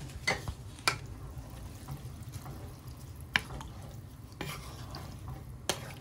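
A spatula stirring rice and water in a pot on the stove, with a few sharp knocks and scrapes against the pot at irregular intervals over a low steady background.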